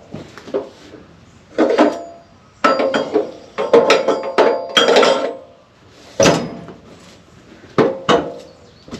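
Irregular clanking and knocking with a metallic ring: a busy run of clatter through the middle, then a few single sharp knocks near the end.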